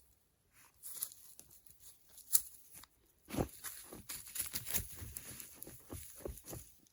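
Camping gear being handled while setting up camp: irregular rustling, crinkling and tearing with scattered sharp clicks, one standing out about two and a half seconds in and busier handling in the second half.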